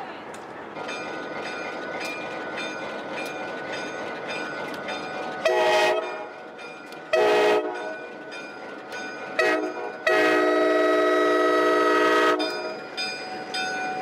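White Pass & Yukon Route diesel locomotive sounding its air horn as the train departs: three short blasts followed by one long blast of about two seconds, each a chord of several notes. Under the horn, a locomotive bell rings steadily, about three strokes a second.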